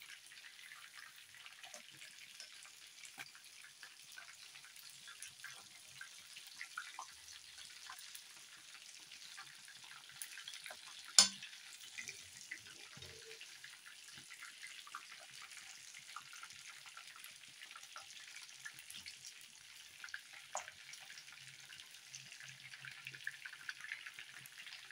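Batter-coated chicken wings deep-frying in hot oil in a pan: a steady faint sizzle with small crackles and pops as they are turned over. About eleven seconds in, a single sharp click stands out above it.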